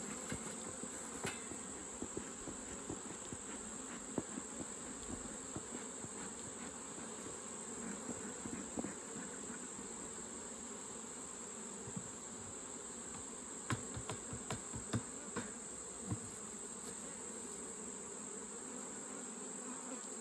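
Honeybees buzzing steadily around an open hive, with scattered light clicks and knocks, most of them bunched together about two-thirds of the way through.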